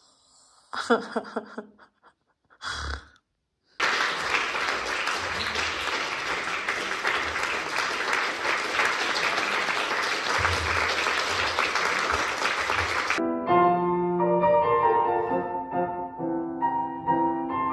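A few brief bits of voice, then audience applause for about nine seconds. The applause cuts off suddenly and a piano begins playing chords.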